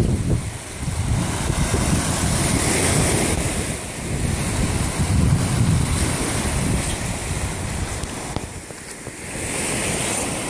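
Waves washing on a lakeshore under wind that buffets a phone's microphone, a rumbling rush that swells and eases unevenly.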